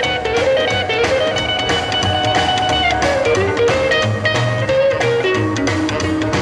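Instrumental break of a rock and roll record: an electric guitar plays a lead over bass and drums, with no singing.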